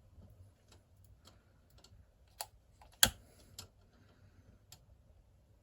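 Scattered small clicks and taps, one sharper click about three seconds in, from handling the burner while trying to light solid fuel tablets that are slow to catch because they have got damp.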